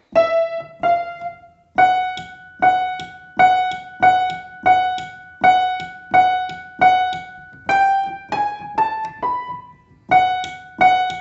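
Upright piano note struck about ten times, evenly, then four notes stepping upward and the first note twice more, played to show a squeak in the key action. The technician suspects it comes from too much play and a rusty pin inside the action.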